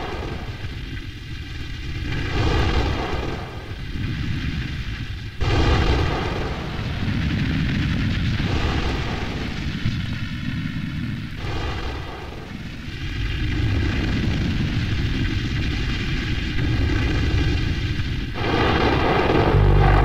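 Abstract optical soundtrack of an experimental animated film: a dense, deep noise with a steady buzz above it. Its texture changes abruptly about five, eleven and eighteen seconds in.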